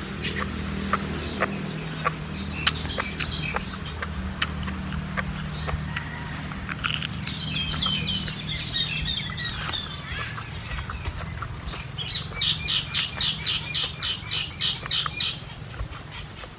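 Mouth clicks of someone chewing chicken, with birds chirping. Near the end, a rapid high bird call repeats about five times a second for some three seconds and is the loudest sound. A low steady hum runs underneath.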